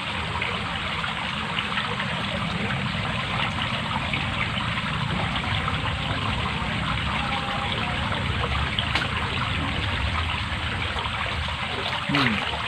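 Water running steadily, a continuous trickling rush.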